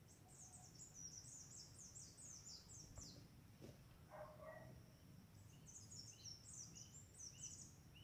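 Small songbird singing faintly in the trees: two runs of rapid, very high-pitched down-slurred notes, the second starting about five and a half seconds in, with a brief lower call between them.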